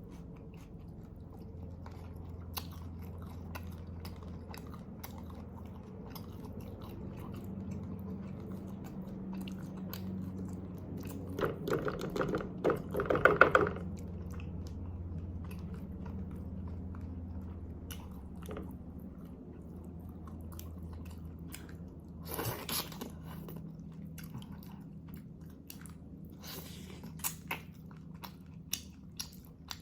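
Close-miked mukbang chewing and biting of beef shank kaldereta, with many small wet clicks. There is a louder burst of mouth noise about twelve seconds in and a shorter one about twenty-two seconds in.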